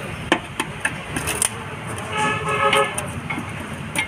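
Sharp metallic clicks of a socket tool against the under-cover bolts, with a car horn sounding once for about a second, about two seconds in.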